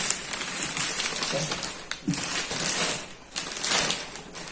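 Plastic wrapping on a cardboard box crinkling in irregular surges as the box is handled.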